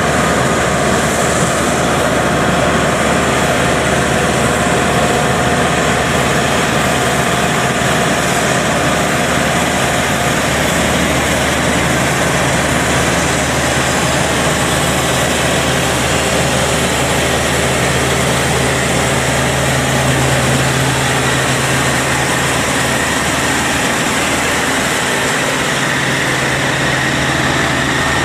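Yanmar 4T100 rice combine harvester running steadily under load while cutting rice. A steady higher whine joins near the end.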